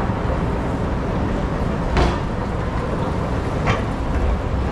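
Steady rumbling noise of an escalator ride up to street level, with two short sharp clatters about two seconds and three and a half seconds in.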